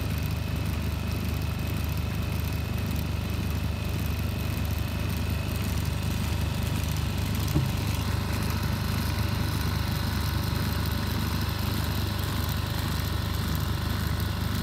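A boat's small inboard engine running steadily at low speed, a low even throb, with a single short knock about seven and a half seconds in.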